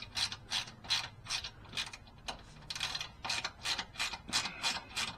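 Socket ratchet with a 7 mm socket clicking in quick repeated strokes as it backs out the bolts of the car's underbody panel. The clicking pauses briefly a little past two seconds in, then carries on.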